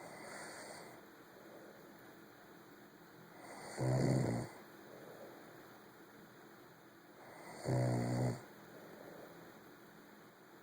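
Someone asleep and snoring in a slow, even rhythm: two loud snores about four seconds apart, each lasting well under a second, with softer breathing in between.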